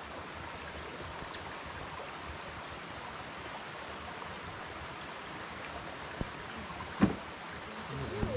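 Steady rush of a rainforest stream's flowing water, with a sharp knock about seven seconds in.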